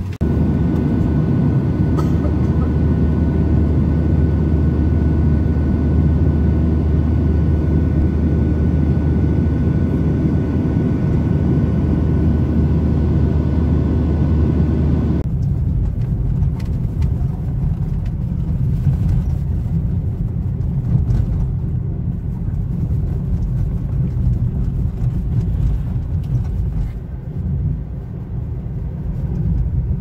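Steady low hum inside a parked jet airliner's cabin. About halfway through it cuts suddenly to the low rumble of road and tyre noise inside a moving car.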